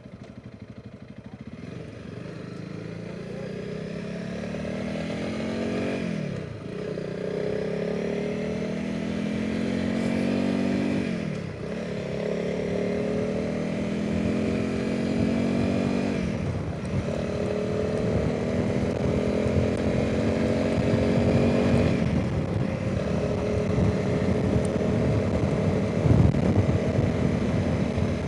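Honda CRF300 Rally's single-cylinder engine accelerating through the gears: the engine note climbs steadily in pitch, then drops with each of four upshifts, about five seconds apart, over steady wind noise on the microphone.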